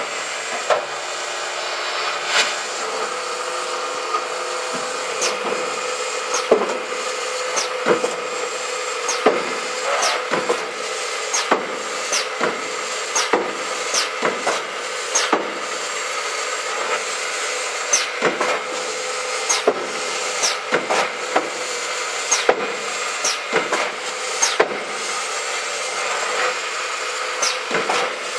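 CNC drilling machine running: a steady machine hum with a few steady tones, broken by frequent sharp clicks and knocks at an uneven pace of roughly one or two a second.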